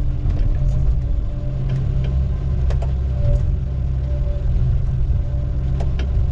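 Heavy diesel engine running steadily with a deep low rumble, with a few short clicks and rattles scattered through it.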